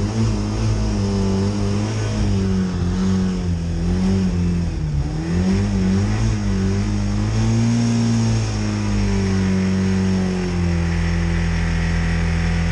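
Ford Fiesta engine running on Coca-Cola in place of motor oil, held on the throttle. Its revs rise and fall unevenly for the first eight seconds or so, then hold steadier. It needs quite a lot of throttle to keep running.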